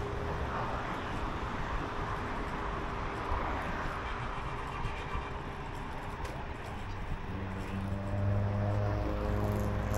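Road traffic passing on a street: a steady tyre-and-engine rush, then an engine hum that grows louder from about eight seconds in as another vehicle comes close.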